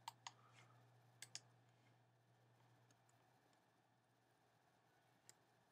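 Near silence: a few faint clicks from computer input in the first second and a half and one more near the end, over a low steady hum.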